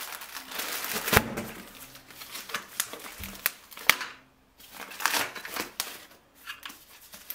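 Plastic packaging wrap crinkling and rustling as it is handled and pulled off parts in a cardboard box, with a few sharp clicks and knocks, the loudest about a second in.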